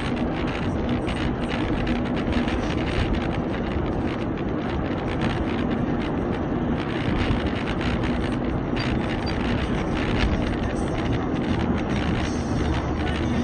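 A moving car's steady engine and road noise, with a low hum that holds level throughout.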